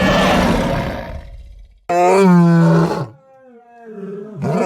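Lion roar sound effect: a loud, rough roar that fades away over the first second, then a sudden held roar with a steady pitch lasting about a second, and another roar starting near the end.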